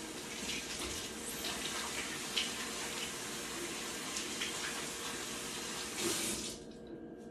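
Kitchen tap running, a steady hiss of water into the sink, with a few light knocks, shut off near the end.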